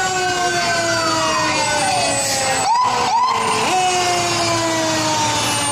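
Fire truck sirens wailing, several at once. Their pitch slowly winds down, and a little under halfway through the siren is twice quickly wound up again in short rising whoops, over the steady hum of the trucks' engines.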